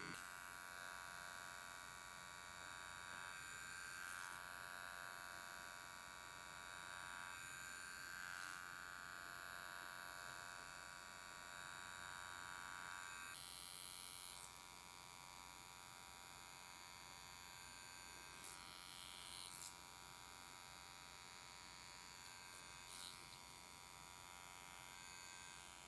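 Electric skin spatula (ultrasonic skin scrubber) running with a faint, steady high-pitched buzz as its metal blade is worked along the side of the nose. The tone changes about halfway through, and a few brief louder scrapes or taps come in the second half.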